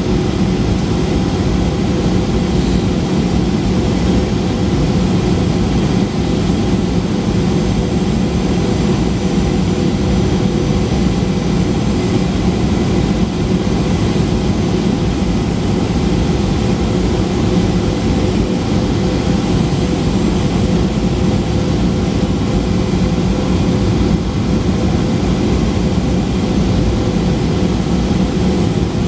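Steady cabin noise of a Boeing 737-800 heard from a window seat over the wing on descent toward landing. The CFM56-7B turbofan and the rushing airflow make an even, deep drone with a few steady humming tones running through it.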